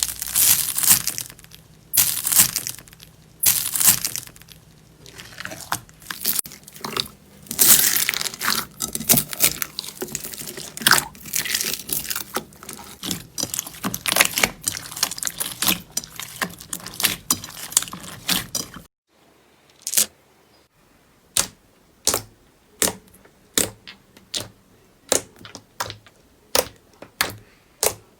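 Crunchy slime being squeezed and pressed by hand, giving dense crackling and crunching. About two-thirds of the way in it cuts to a run of sharp, evenly spaced pops or clicks, about one and a half a second.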